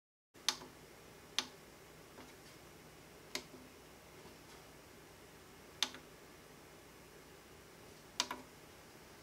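Front-panel pushbuttons of an Elecraft KPA1500 amplifier clicking as they are pressed to step through a setup menu: five sharp clicks a second or two apart, the last a quick double click.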